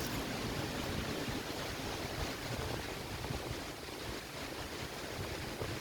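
Steady rushing outdoor background noise with an uneven low rumble underneath, without any distinct event standing out.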